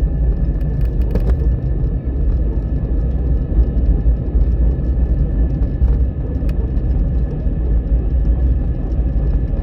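Air Arabia Airbus jet airliner making a steady low rumble with a faint steady high whine above it.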